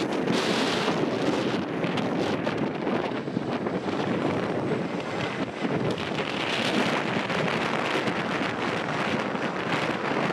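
Wind buffeting the microphone over the steady engine noise of a Boeing 737-800 on final approach, just before touchdown.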